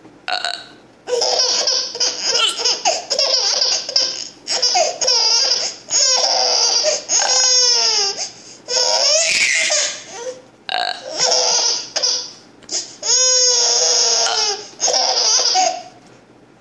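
A baby laughing in repeated bouts of a second or two with short breaths between, some laughs sliding down in pitch.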